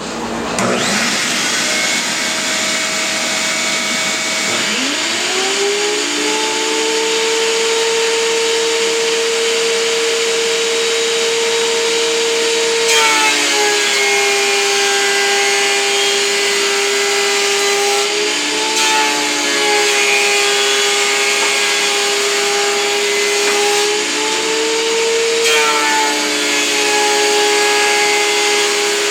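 A vacuum hooked up for dust extraction starts up, then a WEN 6552 13-inch three-blade benchtop planer's motor spins up about five seconds in and runs with a steady whine. Three times its pitch drops and a rougher cutting noise comes in as a board is fed through and planed, the pitch rising again briefly between boards.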